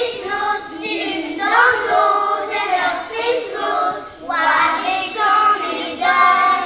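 A group of young children singing a traditional Breton an dro song together in Breton, in sung phrases with short breaks for breath between them.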